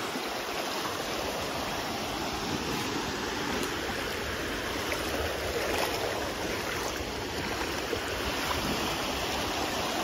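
Sea surf washing on a beach: a steady, even rushing noise with no distinct breaks.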